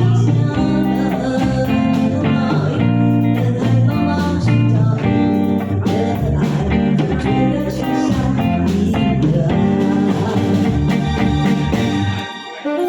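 Instrumental break in a song: a guitar-led backing track over a steady bass line, with no vocal. The bass drops out briefly near the end.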